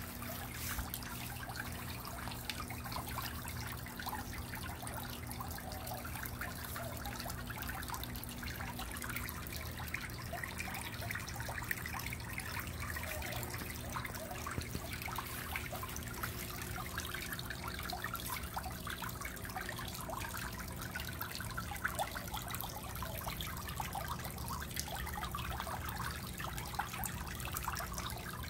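Water trickling and splashing steadily into a small tub pond from a fountain or waterfall outlet, as a dense patter of small drips, over a low steady hum.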